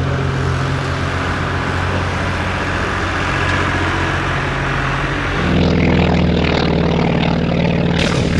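North American P-51D Mustang's Packard Merlin V-12 engine running steadily. About five seconds in, its note shifts to a higher, stronger tone.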